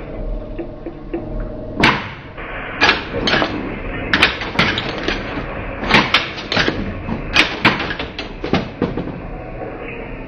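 Williams/Bally The Shadow pinball machine in play: about a dozen sharp mechanical clacks and knocks, irregularly spaced, starting about two seconds in, over the machine's steady background sound.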